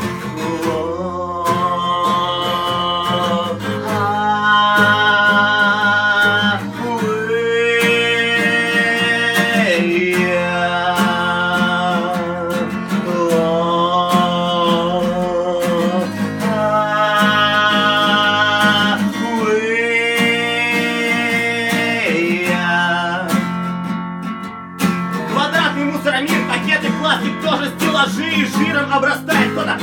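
Acoustic guitar strummed while a man sings a run of long held notes, each lasting a couple of seconds. For the last few seconds the guitar is strummed alone.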